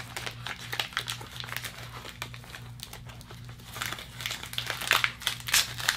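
Plastic snack wrapper on a packet of sandwich cookies crinkling and crackling as it is pulled open by hand, with a louder flurry of crackles near the end.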